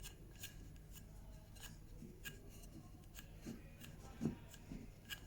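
Pencil drawing lines on the faces of a wooden leg: faint scratching with small clicks and taps as the wood is handled.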